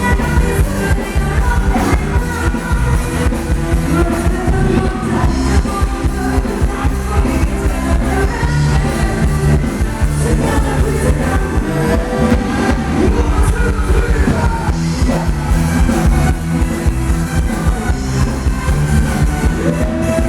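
Live band playing Thai ramwong dance music with a steady beat, and a singer's voice over it.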